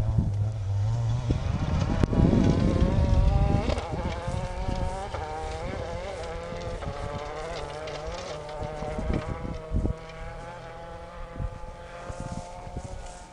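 Rally car engine accelerating hard on a gravel stage, its pitch climbing and dropping back at each gear change as it pulls away and fades into the distance. A loud low rumble comes about two seconds in.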